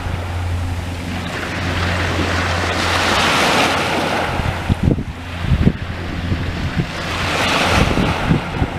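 Small waves washing against the shore, swelling twice, with wind buffeting the microphone. A steady low drone runs under the first half and fades out about five seconds in.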